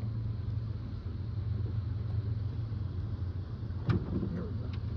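A steady low motor hum, with one sharp knock about four seconds in.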